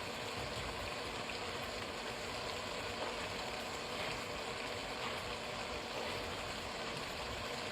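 Goat meat and ground spices sizzling steadily as they fry in a pot, an even hiss with a few faint ticks.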